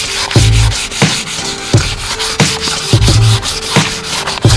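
Hand sanding on the steel body panel of a classic car, a rubbing, scuffing abrasive sound as the paint is keyed up for coating. Background music with a steady beat and bass plays throughout.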